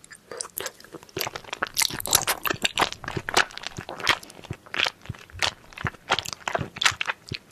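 Crunchy food being bitten and chewed up close, a dense run of irregular crackling crunches that starts just after the opening and carries on throughout.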